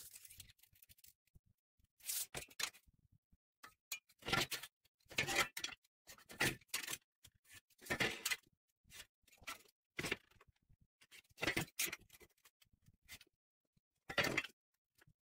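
A steel square tube and a metal square being handled on a metal workbench while the tube is marked out: a series of short scrapes and knocks, irregularly spaced.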